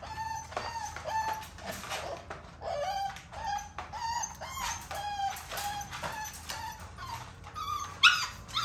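Six-week-old American bully puppy whimpering in short high cries, about two a second, while it is held and dosed with dewormer paste by oral syringe. A louder cry rising in pitch comes near the end.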